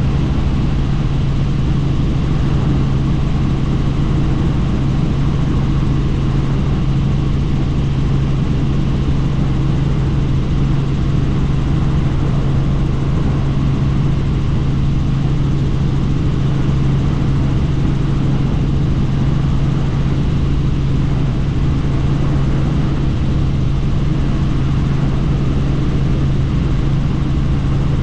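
Helicopter in flight: steady rotor and engine drone with a strong low hum that does not change.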